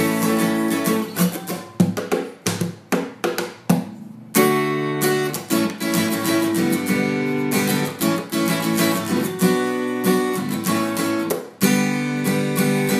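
Instrumental acoustic guitar strumming chords. About two seconds in it breaks into short, choppy strokes and a brief pause, then the full strumming resumes.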